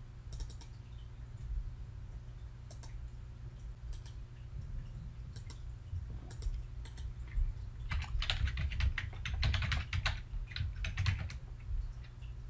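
A few separate clicks, then a burst of fast typing on a computer keyboard lasting about three and a half seconds, over a steady low hum.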